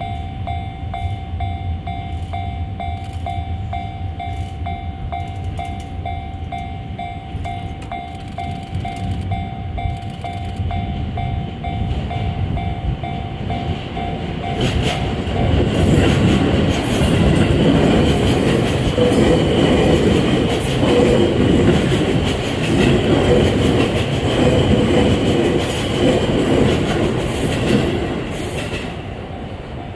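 E653 series electric train approaching and running past close by. Its rumble grows over the first half and turns loud about halfway in, with repeated clattering of the wheels over the rail joints. It fades near the end. A steady high tone sounds in the background before the train arrives.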